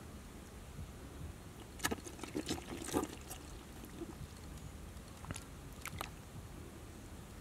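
Faint small splashes and trickling in shallow, muddy water: a cluster of crackling splashes about two to three seconds in, and two more near six seconds.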